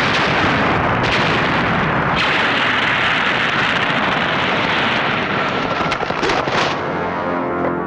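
Action-film sound effect: a loud, continuous rushing blast noise with no gaps, as smoke plumes jet up. Near the end it thins out and held music tones come in.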